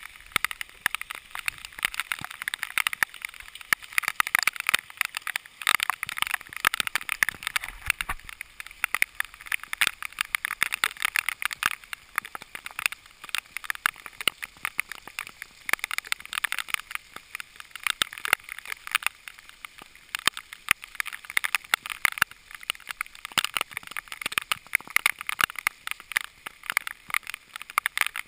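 Rain, with drops striking the camera's housing in a dense, irregular run of sharp ticks over a steady hiss.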